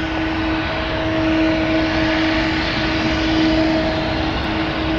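Boeing 777-200ER's twin jet engines running, a steady loud roar with a constant hum in it, as the airliner rolls on the runway for takeoff.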